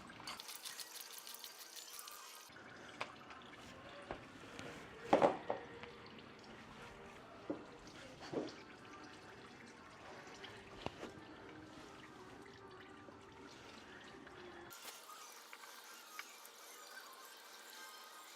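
Used engine oil draining from a Porsche 997 Carrera into a drain pan: a faint steady trickle with drips. A few short clinks and knocks are scattered through it, the loudest about five seconds in.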